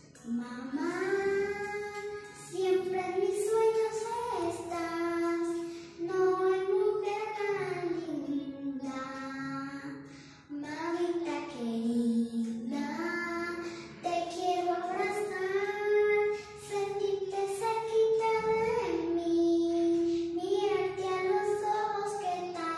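A young girl singing a slow song, holding long notes in phrases a few seconds long with short breaths between them.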